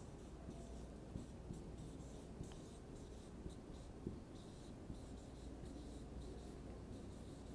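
Faint squeak and scratch of a marker pen on a whiteboard, in short irregular strokes as words are written out.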